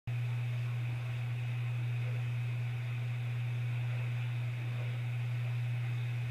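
A steady low hum under a constant hiss, unchanging throughout.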